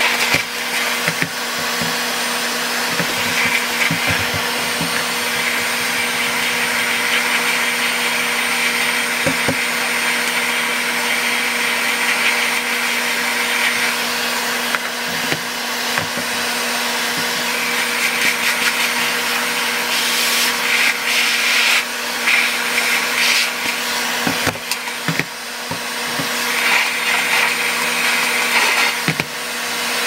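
Cordless stick vacuum running steadily with a high whine, its suction hiss rising and falling as the nozzle is worked over the filter and brush parts. A few plastic clicks and knocks come from the parts being handled, mostly near the end.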